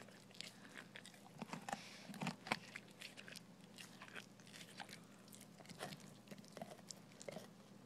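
A dog crunching and gnawing frozen raw chicken heads, with irregular sharp cracks of bone and beak between her teeth, loudest around two seconds in.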